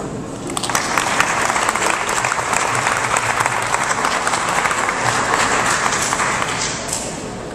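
Audience applauding, starting about half a second in and tapering off near the end.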